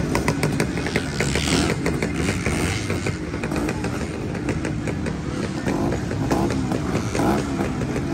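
Several vintage two-stroke motocross bikes running together at a starting line, their engines a loud, steady, continuous mix.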